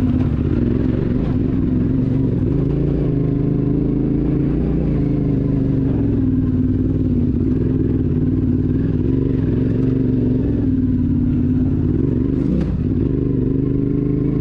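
Yamaha Ténéré 700's parallel-twin engine running under way at a fairly steady pitch, with one brief knock near the end.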